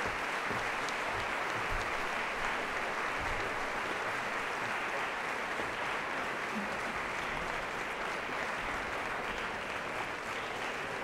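Audience applauding steadily, a dense continuous clapping that eases slightly toward the end.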